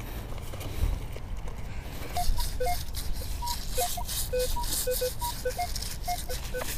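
Minelab Equinox 600 metal detector giving a jumpy, high target signal: short beeps that hop between several pitches, starting about two seconds in. A gritty rattling runs alongside the beeps.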